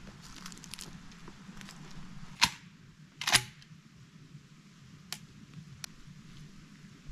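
Two loud, sharp knocks a little under a second apart, the second slightly longer, followed by a few faint clicks over a low steady background.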